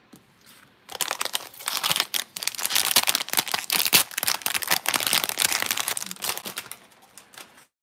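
Clear plastic bag around a trading-card booster pack crinkling and crackling as hands handle it. It starts about a second in and dies away near the end.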